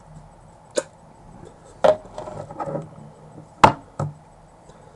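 Four sharp knocks or taps, the loudest a little past halfway, with softer handling and rustling noise between them.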